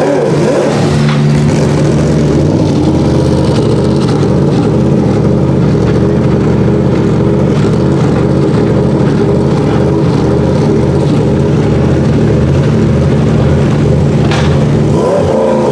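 Sauber Mercedes C9's turbocharged 5.0-litre M119 V8 idling steadily. The revs begin to blip up and down near the end.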